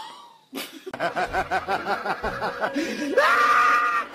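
A dog vocalizing: a quick run of short, laugh-like yips, then a rising howl held for about a second near the end.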